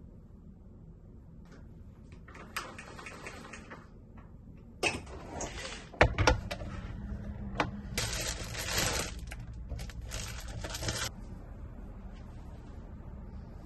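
Household handling sounds: soft rustling, then a run of knocks and clicks as the lid of an electric sandwich maker is worked, the loudest a sharp knock about six seconds in, followed by about three seconds of rushing hiss.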